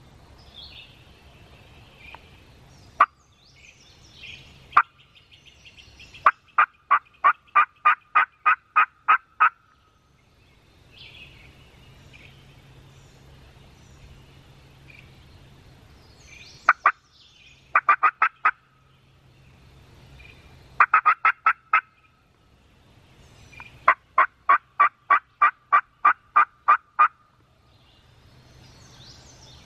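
Turkey yelping: two single sharp notes, then four runs of loud, evenly spaced yelps at about four a second. The two longest runs have about a dozen notes each. Faint songbird chirps sound between the runs.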